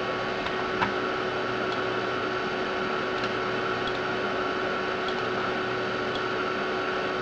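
Steady whirring noise with a constant whine from an Amiga 4000's hard drive and power supply running, with one faint click about a second in.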